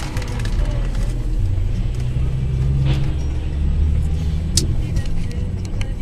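Low, steady rumble of a car's engine and tyres in traffic, heard from inside the cabin, with a couple of sharp clicks about three and four and a half seconds in.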